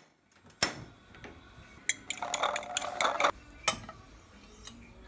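Table knife clinking and scraping against a nonstick frying pan while butter is put in: a few separate sharp clinks, with a second or so of busier clattering about halfway through.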